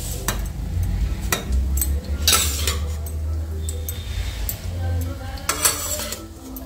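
A metal spoon scraping and clinking against metal cookware: several sharp clinks and two longer scrapes, about two seconds in and again near the end. The cooked onion-tomato mix is being spooned into a mixer jar for grinding.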